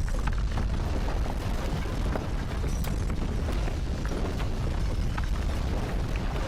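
Deep, continuous earthquake rumble, with scattered short crackles and rattles over it.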